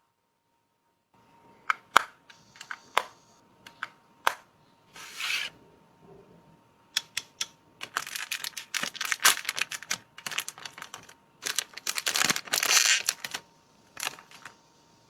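Makeup packaging being unwrapped by hand: a scatter of sharp clicks and taps, then stretches of crinkling and tearing of wrapping, thickest about eight and twelve seconds in.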